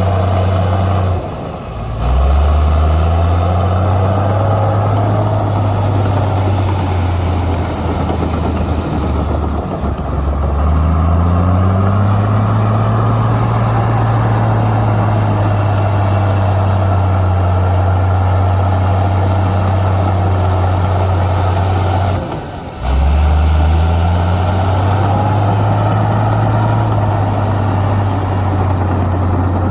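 Heavy diesel engine of earthmoving machinery running steadily under load. The engine note rises back up after brief drops about two seconds in and again near the end, and swells once midway.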